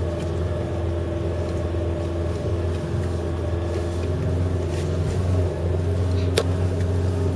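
Off-road truck's engine running steadily under load, heard from inside the cab as it climbs a steep slope without stopping. A single sharp click about six and a half seconds in.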